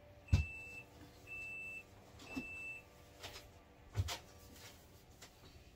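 Refrigerator door-open alarm beeping three times, about a second apart: the fridge doors have been left open too long. A few sharp knocks from things being moved about inside the fridge, the loudest just before the first beep and about four seconds in.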